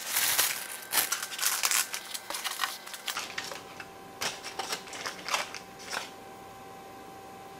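Plastic and foil food packaging rustling and crinkling as takeout containers are unpacked, dense for the first three seconds and then in a few short scattered rustles and clicks.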